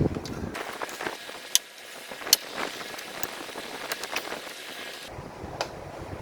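Plastic bottom cover of an Aftershock MX-15 laptop being pried off, its snap clips crackling and clicking loose one after another, with several sharp snaps as they let go.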